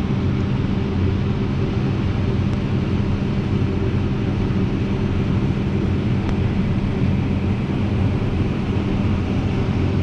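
Combine harvesters running while harvesting corn, one of them a Case IH 7150 with a 12-row corn head working alongside. Their diesel engines and threshing machinery make a steady drone with a low, even hum.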